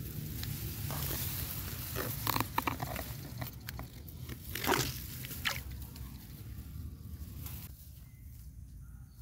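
Hands splashing and rustling in shallow rice-paddy water as a small fish is let go, with a few short, sharp splashes between about two and five seconds in, over a steady low wind rumble on the microphone.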